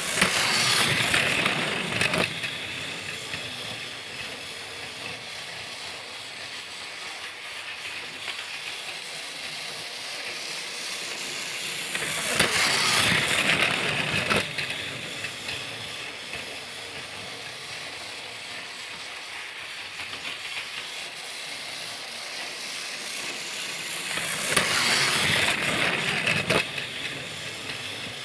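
Motorized Thomas the Tank Engine toy train running: the small motor and gears make a steady whirring clatter with light ticks. Three times, about twelve seconds apart, a hissing burst of about two seconds rises over it.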